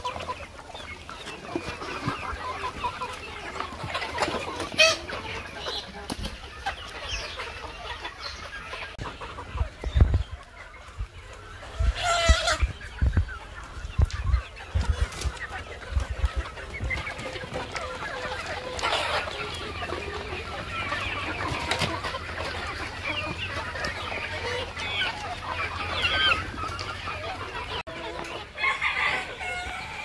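A large flock of local free-range chickens clucking and calling all the time, with a few low thumps around the middle.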